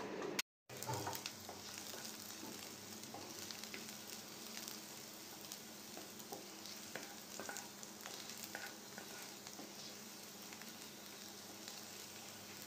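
Chopped onion, green chilli and ginger frying in a little oil in a non-stick pan, a faint steady sizzle with scattered small crackles and spatula scrapes as it is stirred. There is a brief dropout just after the start.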